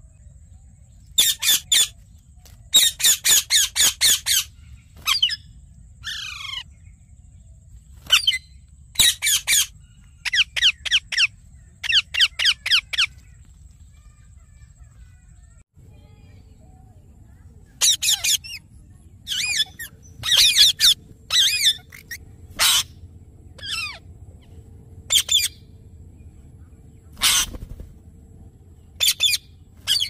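Indian ringneck parakeets calling: loud, harsh, high-pitched screeches in rapid series of several calls each, with pauses between series, and one falling call about six seconds in.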